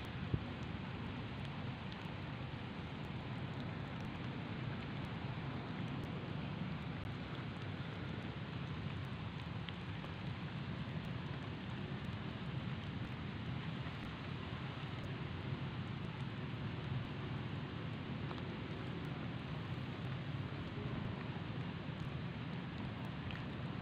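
Steady, even rushing noise of outdoor background, with no distinct events apart from one faint tick just after the start.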